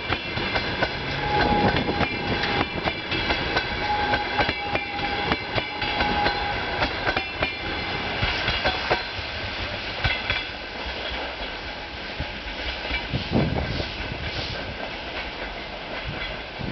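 Passenger train coaches rolling past, the wheels clacking over rail joints in a fast run of clicks over a steady rumble, with a faint squeal from the wheels. The clatter eases about two thirds of the way through.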